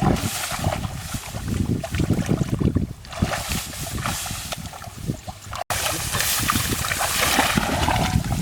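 Muddy water sloshing and splashing in irregular bursts, with wind noise on the microphone.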